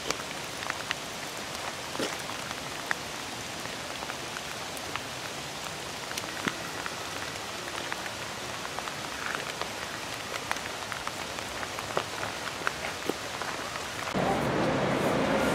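Steady rain hiss with scattered sharp drip-like taps close by. Near the end a louder, steadier sound with held tones comes in.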